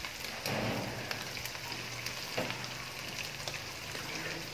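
Marinated boneless chicken pieces frying in hot oil in a non-stick kadhai, a steady fine sizzle and crackle on a slow-to-medium flame. A faint low hum runs underneath from about half a second in.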